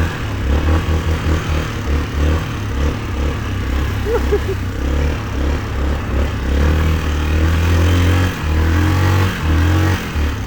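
2004 Yamaha Kodiak 450 ATV's single-cylinder four-stroke engine running under load as it is ridden off-road, the throttle coming on and off in choppy pulses so the engine note rises and drops repeatedly.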